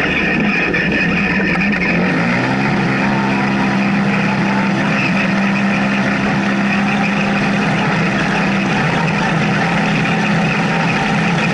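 Polaris RZR side-by-side's engine heard from inside the cab over rattling and tyre noise on a dirt track. The engine note drops about two seconds in as the car slows for a turn, holds steady, then climbs again near the end as it accelerates away.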